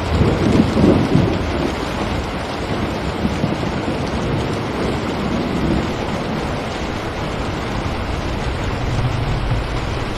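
Steady rain falling on a window, with a low rumble in the first second or so.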